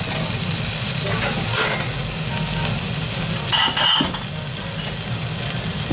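Slice of breaded wagyu beef cutlet sizzling steadily on a hot plate. About three and a half seconds in there is a short high-pitched ringing sound.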